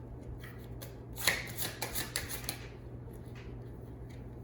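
Tarot cards being shuffled by hand: a quick flurry of snapping card edges a little over a second in, with softer card handling before and after.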